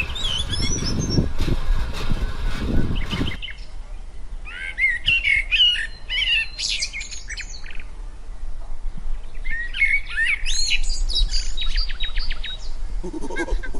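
Small birds chirping and twittering in quick bursts, after a low rumbling sound that cuts off about three seconds in; a lower honking call begins just before the end.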